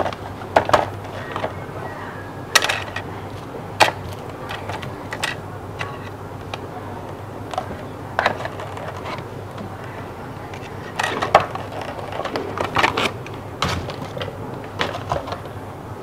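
Scattered clicks, taps and rustles as a metal laptop HDD caddy, its plastic packaging and a 2.5-inch hard drive are handled and set down. The knocks are short and irregular, with a cluster about eleven to thirteen seconds in.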